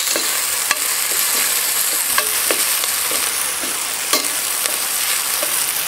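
Sliced red onions sizzling in hot oil in a large aluminium pot, stirred with a spatula, with a few light clicks of the spatula against the pot.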